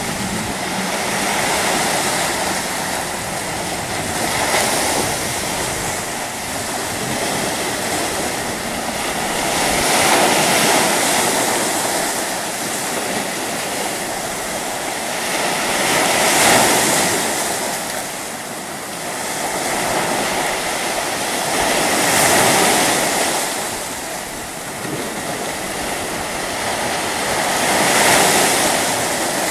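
Sea surf: small waves breaking on a rocky shore, the rush of water swelling and easing about every six seconds.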